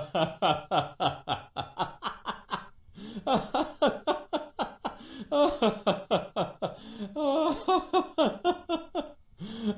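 Stock laughter sound effect: a person laughing hard in quick rhythmic 'ha-ha' pulses, about five or six a second, broken into bouts by short pauses for breath.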